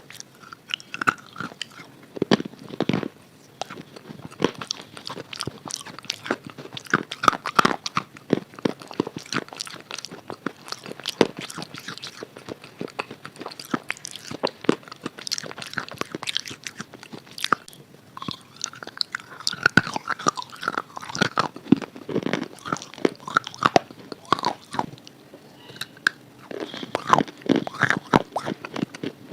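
Close-up crunching and chewing of a red chalk bar coated in red khadi chalk paste: a dense run of sharp, crisp crunches from biting and chewing.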